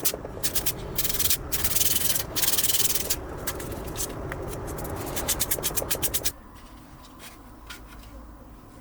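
Hand sanding on the pistol's grip: quick back-and-forth rubbing strokes, with loud fast runs in places, that stop abruptly about six seconds in.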